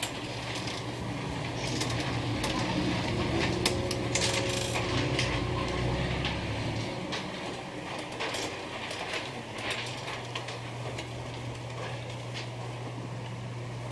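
Sheet music rustling and small clicks and knocks of handling before the playing starts, over a steady low hum; the rustling and clicks come mostly in the first ten seconds.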